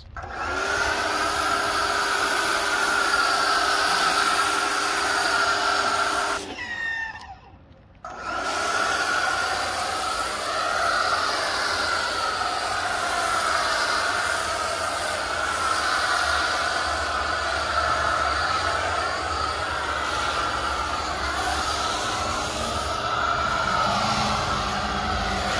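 Chemical Guys electric pressure washer running steadily while its foam cannon sprays, the pump droning under the hiss of the spray. It cuts out briefly about six and a half seconds in, then starts again.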